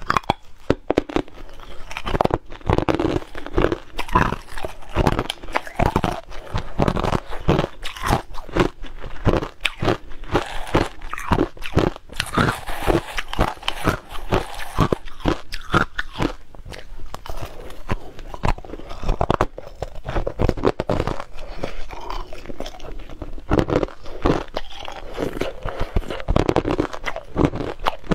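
Hard ice being bitten and chewed: a dense, irregular run of sharp crunches and cracks as chunks of ice break between the teeth.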